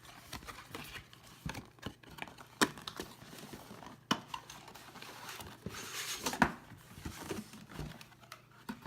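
A microphone's retail box being opened and its packaging handled: rustling and crinkling with scattered sharp clicks and taps, the loudest a little past the middle and about two-thirds through.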